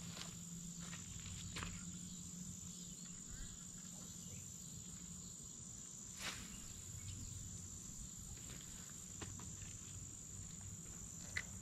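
Faint, steady high-pitched insect chorus, a continuous buzz, with a couple of faint clicks, one about six seconds in and one near the end.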